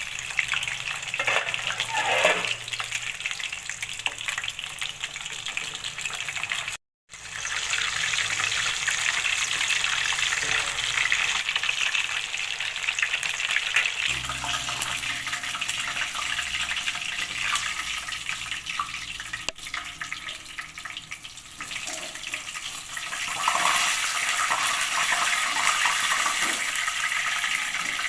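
Chicken deep-frying in hot oil: a steady, dense sizzle and crackle. It breaks off for a moment about seven seconds in, then carries on.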